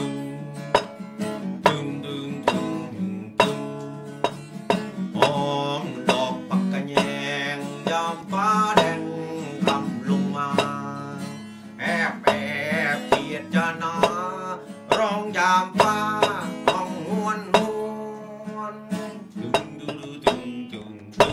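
Acoustic guitar strummed in a steady rhythm, with a singing voice wavering over it through the middle part.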